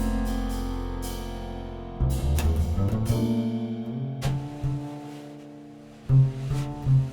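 Jazz piano, double bass and drums playing an instrumental passage. A low chord rings and fades, then a line of double bass notes comes in about two seconds in, with cymbal and drum hits toward the end.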